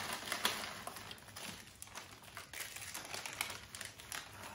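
Foil-lined plastic snack packet crackling and rustling as hands dig through it and shake out the ring snacks, a rapid, uneven run of small sharp crackles.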